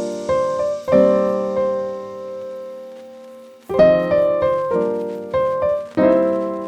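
Background piano music: soft phrases of struck notes and chords that ring out, with a pause in the middle before the next phrase begins.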